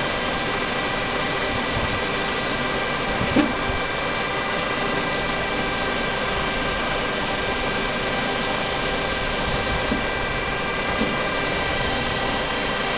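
U Mole MTS suction excavator truck running steadily in MTS mode with a constant whine, while its hydraulic power arm swings back to the transit position. A short knock about three seconds in, and two fainter ones later.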